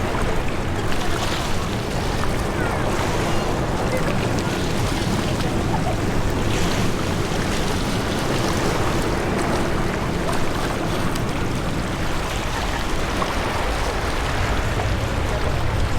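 Steady rushing wind noise buffeting the microphone, strongest at the low end, with no swell of a jet passing.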